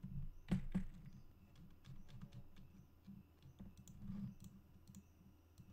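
Computer keyboard and mouse clicks, scattered single clicks at irregular intervals, with two louder ones near the start.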